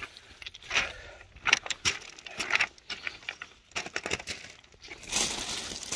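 Footsteps on loose scree: walking boots crunching on small stones that clink against each other, in irregular steps, growing louder and denser about five seconds in.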